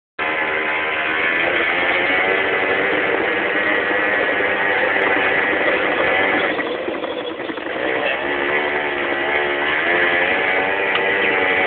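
Engine of the small motor vehicle towing a Bobby Car on a rope, running steadily with its pitch drifting up and down; it eases off briefly about seven seconds in, then picks up again.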